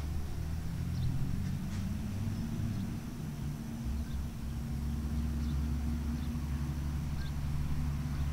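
Steady low mechanical hum, like an engine running, with a few faint, short high chirps over it.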